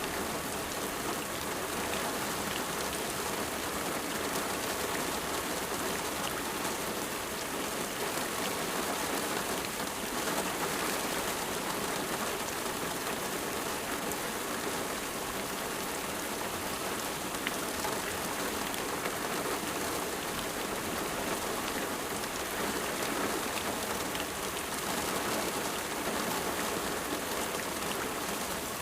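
Steady rain falling, a dense even hiss with scattered individual drop ticks.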